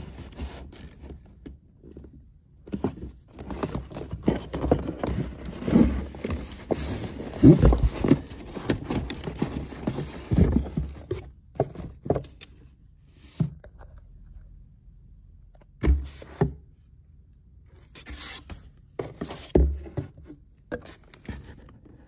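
Paper and cardboard packaging being handled: a stiff paper gift bag rustling and scraping against a cardboard box, with many small knocks. It is busy through the first half, then thins to a few separate thumps and short scrapes.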